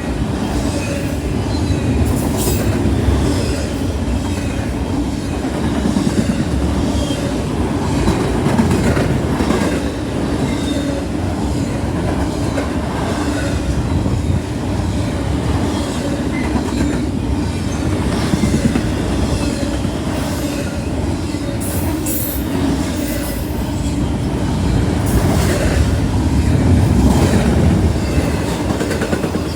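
Fast-moving intermodal freight train passing close by: a steady rumble of rolling cars with clatter of the wheels over the rails.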